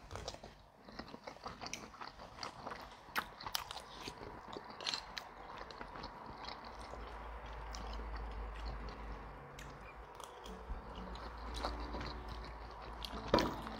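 Close-miked chewing of noodles in meat sauce, with scattered light clicks and scrapes of forks on plates.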